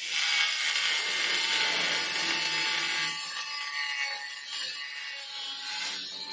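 Handheld electric angle grinder cutting through a floor tile: a steady high whine with gritty grinding, loudest for the first few seconds and easing a little about halfway through.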